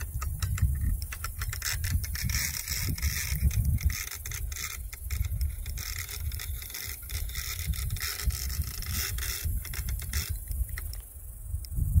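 Fishing reel working under a hooked alligator's pull, a fast clicking and whirring that stops about ten seconds in. Wind buffets the microphone throughout.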